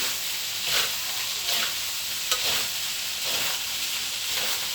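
Fried rice sizzling in a hot pan as it is stirred and turned with a spatula, with a scraping stroke about once a second over a steady frying hiss.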